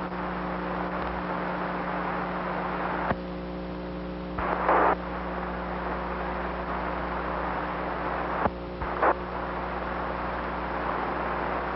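Steady hiss and mains hum on an open radio audio channel, broken by a couple of sharp clicks and two short bursts of noise, the second near the end.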